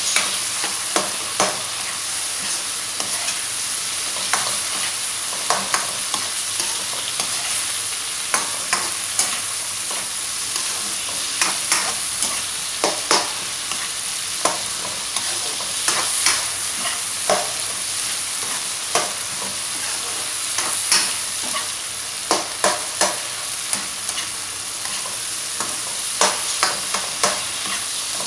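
Scrambled egg, tomato and spring onion frying in a wok with a steady sizzle, while a spatula scrapes and taps irregularly against the wok as the mixture is stirred and cooked until the tomatoes soften.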